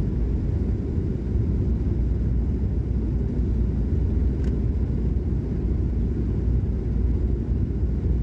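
Steady low rumble of a SpiceJet Boeing 737 heard from inside the passenger cabin on final approach, with flaps extended.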